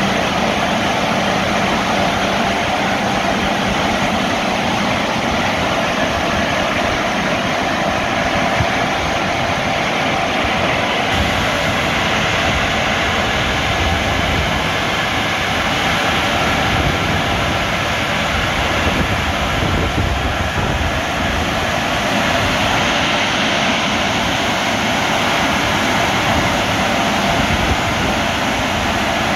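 CSB tunnel car wash drying blowers running, a loud steady roar of rushing air as the car passes under the overhead and side air nozzles.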